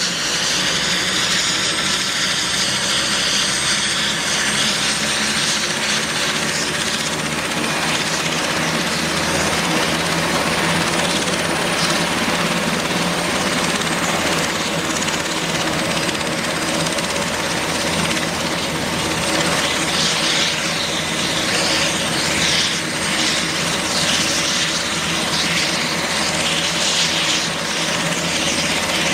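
Super Puma-family twin-turbine military helicopter running on the ground with its rotors turning: a steady turbine whine with a thin high whistle over the rotor noise.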